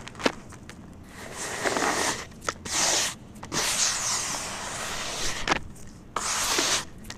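Dry, crumbly cement powder handled by bare hands: a few sharp crackles at first, then several gritty, hissing rushes as handfuls are scooped, rubbed and let fall back into the pile.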